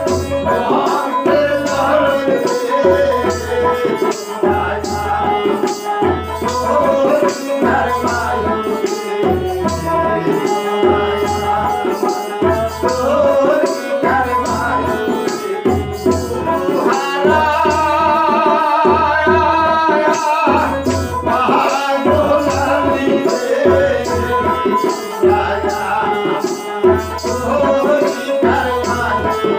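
Live Bengali bicched folk song: a male voice singing with a second voice joining, over a rope-tuned barrel drum (dhol) struck about once a second, a plucked dotara and an electronic keyboard. About two-thirds of the way in the voices give way briefly to a quick wavering instrumental phrase.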